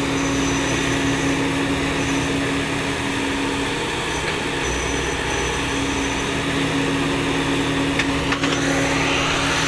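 Engine running steadily at an even pitch, with a constant low hum.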